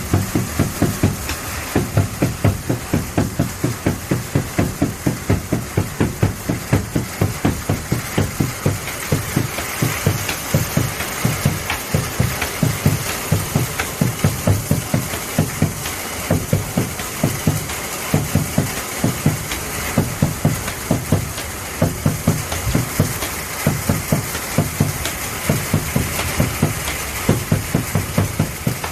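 Korean buk and janggu drums beaten in a steady rhythm, about two to three low strikes a second, over the constant hiss of a heavy summer downpour.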